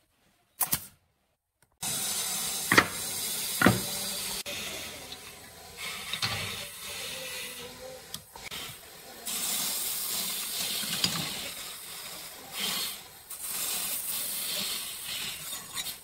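A steady hiss, with two sharp shots about three and four seconds in from a pneumatic brad nailer driving brads into pine.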